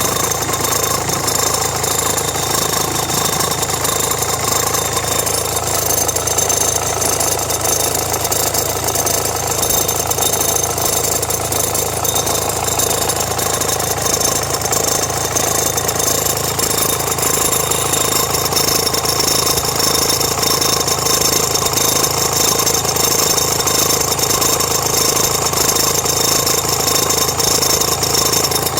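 Renault Mégane 1.5 dCi four-cylinder diesel idling with a steady rattle that comes under electrical load (radio, rear window heater, blower). The belt and tensioner have already been replaced, and the owner suspects the alternator or the air-conditioning compressor.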